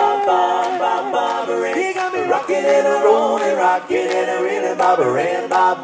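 An a cappella doo-wop vocal group singing close harmony with no instruments, holding chords that change every second or two.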